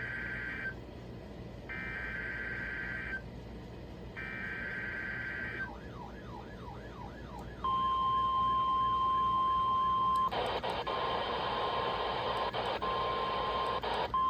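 NOAA Weather Radio test alert over a radio receiver: three burst screeches of SAME digital header data about a second apart, then a warbling tone, then the steady 1050 Hz warning alarm tone. For the last four seconds a loud hiss of static sounds over the tone.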